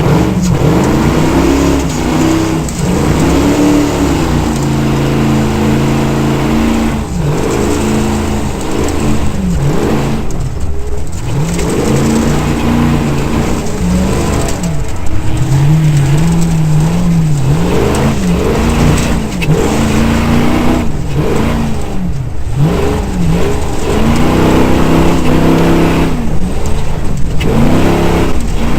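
V8 engine of a Pro-Lite desert race truck running hard, its pitch climbing and falling over and over as the throttle is opened and lifted, with short breaks between some of the climbs.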